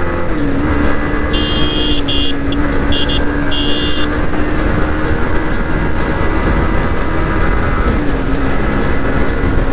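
Yamaha MT-15's 155 cc single-cylinder engine running at road speed under wind rush on the microphone; its pitch dips briefly about half a second in and again near eight seconds, as the rider shifts up through the gears. A high horn beeps in several short bursts between about one and four seconds in.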